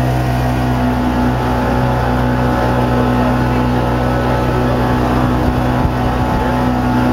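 Motorboat engine running at a steady speed, an even low drone, with water rushing past the hull.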